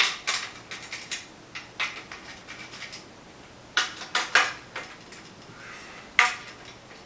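Drum rack bar and clamp being handled and adjusted: irregular metal clinks and knocks in small clusters as the parts are shifted into place.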